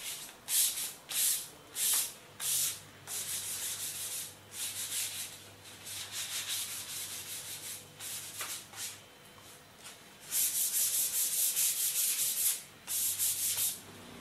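Hand sanding of a bare wooden table frame with sandpaper: back-and-forth rubbing strokes with a hissing scratch. They start as separate loud strokes, soften to steady lighter rubbing through the middle, and come back loud and quick near the end.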